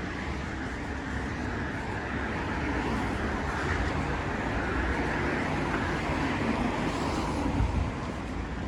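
City road traffic on wet streets: a steady low rumble of passing vehicles with tyre noise on wet asphalt.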